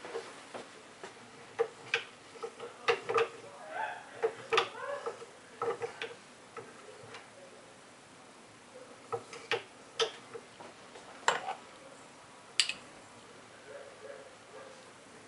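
Scattered clicks and knocks of plastic syringes and tubing being handled while their plungers are pushed and pulled to work a homemade syringe-powered pneumatic crane. The clicks come thick in the first half and fewer and further apart later on.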